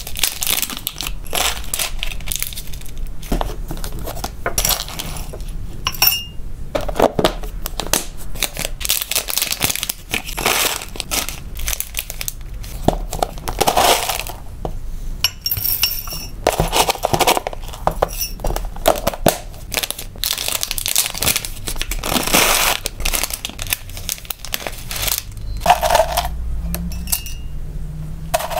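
Close-up handling of hamster food packaging: a plastic snack packet crinkling as it is torn open, then dry food pieces rattling and clicking as they are scooped with a plastic spoon from plastic storage boxes into a glass dish. Irregular, closely miked clicks and rustling throughout.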